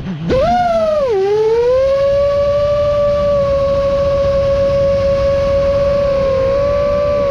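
FPV quadcopter's brushless motors and propellers whining. Right at the start the throttle is cut briefly, then the pitch swoops up and back down, and from a little over a second in it holds one steady pitch, wavering slightly near the end.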